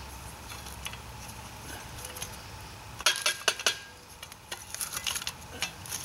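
Metal folding shovel scooping charcoal briquettes, with the briquettes clinking against the blade and each other: a cluster of sharp clinks and scrapes about three seconds in, then another run of lighter clinks near the end.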